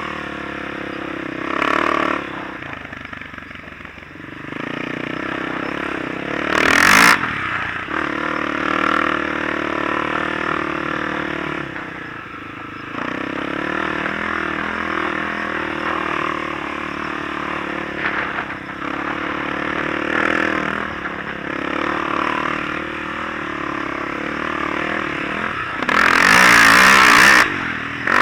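Off-road vehicle engine running and revving on a sandy trail, its pitch rising and falling with the throttle. A loud rushing noise cuts in briefly about seven seconds in, and again for over a second near the end.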